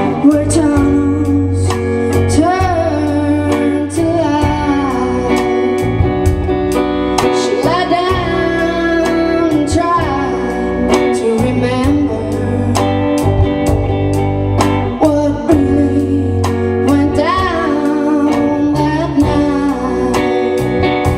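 A live rock band playing a song: a woman singing over guitar, bass guitar and drums keeping a steady beat.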